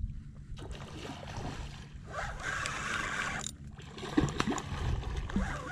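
Water splashing and gurgling as a hooked redfish thrashes at the surface of a marsh creek while it is reeled in, over a steady low rumble, with a few sharp clicks near the end.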